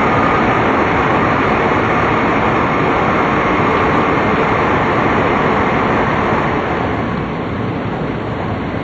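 Steady rumble of a Tōhoku Shinkansen Hayate train running at speed, heard inside the passenger car. It eases a little about six and a half seconds in.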